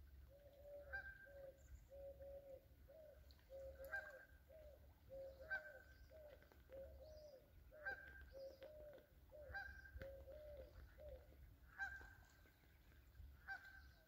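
Faint honking of geese, a quick run of short repeated honks that stops about three seconds before the end, with a sharp click every second or two.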